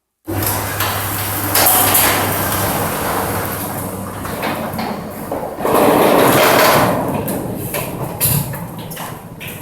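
Gliderol sectional garage door running on its Boss opener motor, starting abruptly. A steady motor hum under a continuous rumble and rattle of the door moving along its tracks.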